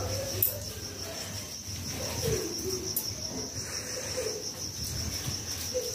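An insect trilling steadily at a high pitch, with a bird cooing in low, wavering phrases several times. There are a couple of light knocks, about half a second in and about three seconds in.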